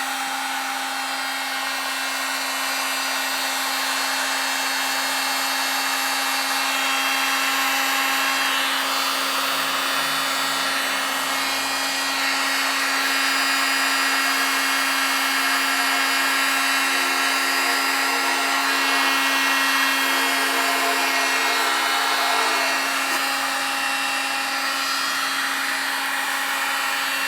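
Electric heat gun running steadily, its fan giving a constant hum over the hiss of blown hot air, as it shrinks a large sleeve of heat-shrink tubing over a wiring harness.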